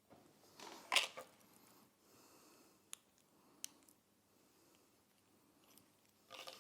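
Plastic packaging being handled: a short crinkling rustle about a second in, a softer rustle, then two sharp clicks.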